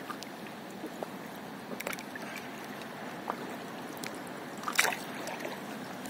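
Water splashing and dripping around a stand-up paddleboard on calm sea, with short splashes from the paddle dipping in about every second and a half; the loudest comes near the end.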